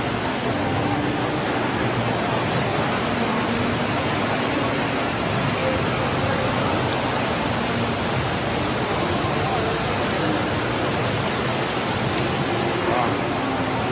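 Steady rushing of a running indoor fountain's water, with faint murmur of people's voices underneath.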